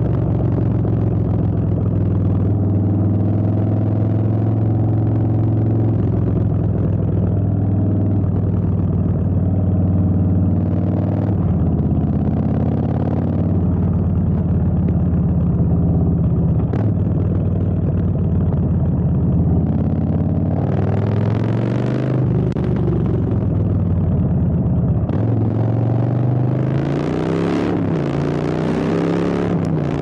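Custom Harley-Davidson Softail Street Bob's V-twin running through straight drag pipes while riding, a steady exhaust note with wind rush. Twice in the second half the rider rolls on the throttle and the pitch climbs, then drops back.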